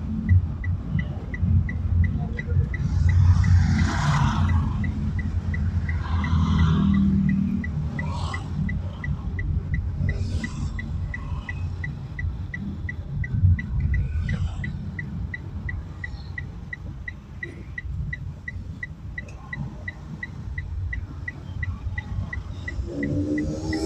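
Traffic noise heard from inside a moving car: a steady low road and engine rumble, with louder swells as other vehicles pass. A regular ticking, about two and a half a second, runs through it. Music comes in right at the end.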